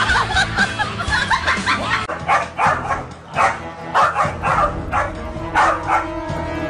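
Small dog barking in a quick series of short, high yaps, starting about two seconds in.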